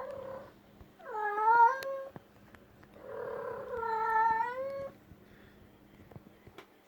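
Domestic cat meowing in long, drawn-out calls: the end of one at the very start, then one about a second in, then a longer one of nearly two seconds starting about three seconds in. The calls are followed by a few faint clicks.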